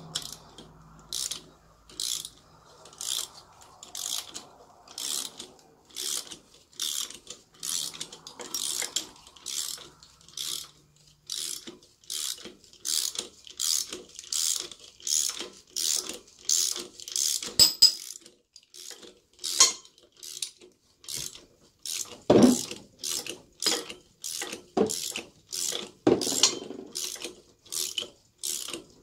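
Ratchet wrench clicking in short, even strokes, about two a second, as it runs the harmonic balancer bolt in by hand; a sharp click a little past halfway and two heavier clunks in the last third.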